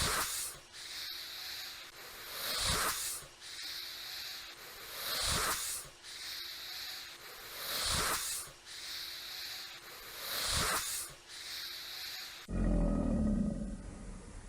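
Alligator sounds: a series of five noisy, rasping surges, evenly spaced about two and a half seconds apart. Near the end they give way to a deep, low rumbling bellow.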